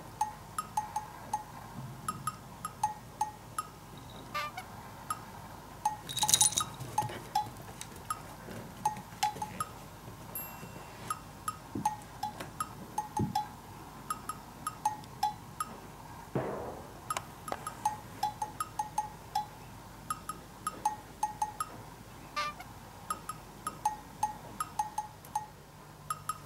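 Background music: a light, plinking tune of short chime-like notes, a few per second, with a falling slide about sixteen seconds in.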